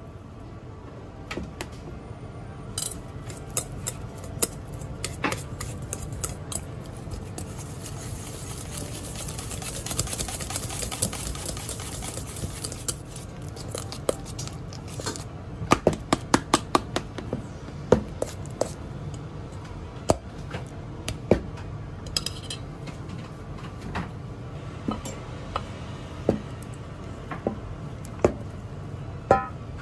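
Cream cheese and aonori being mixed in a stainless steel bowl: soft scraping with a scattering of sharp clinks of a utensil against the metal bowl, coming thickest about halfway through.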